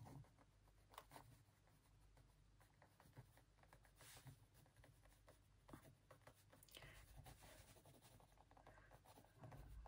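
Very faint scratching of a pen writing on notebook paper, in short irregular strokes with a few light ticks.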